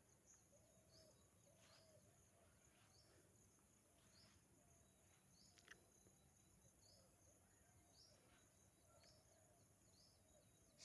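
Near silence with faint chirps repeated at an even pace, about one a second, over a thin steady high hiss.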